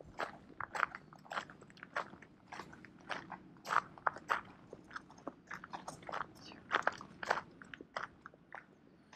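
Footsteps crunching on gravel at walking pace, with the stronger crunches coming about twice a second.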